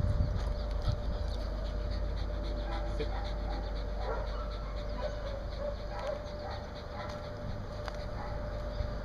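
Small dog panting with its mouth open after running to fetch a ball, a quick, even rhythm of breaths.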